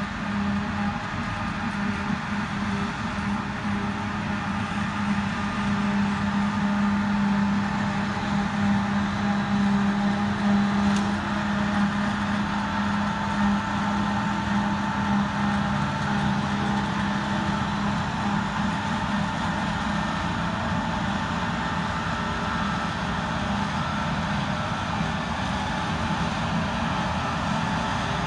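Claas Jaguar self-propelled forage harvester running steadily while chopping grass, its engine and cutterhead making a continuous drone, a little louder in the middle as it comes closer.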